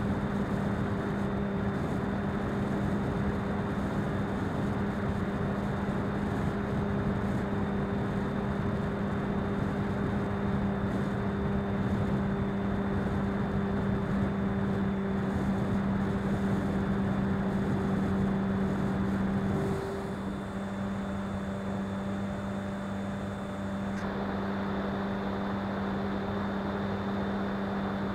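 Onboard audio from an RC plane in flight: a steady hum from its motor and propeller over a constant rush of air on the microphone. About twenty seconds in the sound drops a little and the higher hum fades out.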